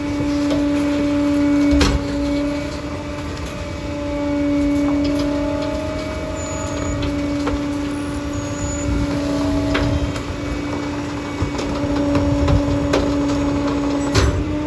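Side-loading garbage truck running at a steady raised idle to drive its hydraulics, an even hum with mechanical rattle, broken by a sharp metal clunk about two seconds in and another near the end.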